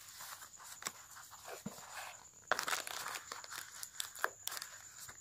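Clear plastic bag crinkling and cardboard box flaps rustling as a phone is handled out of its packaging. The crinkling grows denser and louder about halfway through.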